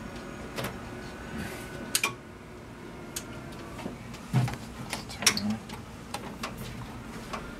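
A string of sharp clicks and knocks as hands handle the top cover of an Anajet mp5i direct-to-garment printer, over the steady hum of the printer, which has just been switched on.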